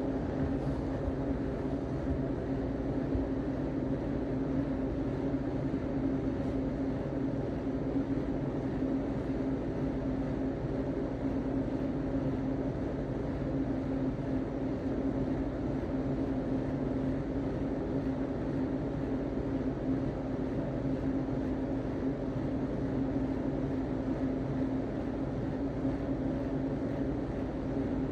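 Steady mechanical hum with one strong pitched tone, unchanging in level and pitch.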